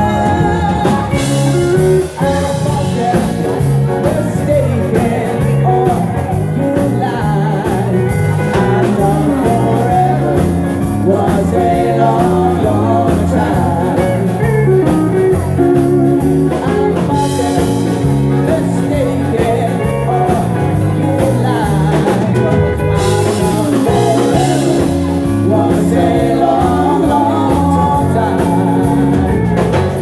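Live band playing a rock/pop song with a steady bass line and keyboards, a woman singing lead through a microphone; in the second half long held instrumental notes come to the fore.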